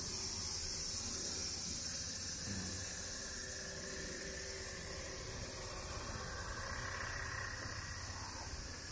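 Cicadas buzzing steadily, a dense high-pitched drone that eases slightly toward the end.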